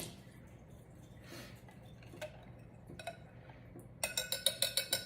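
A few faint clicks, then near the end about a second of rapid ringing clinks, a whisk knocked against the bowl's rim to shake off batter.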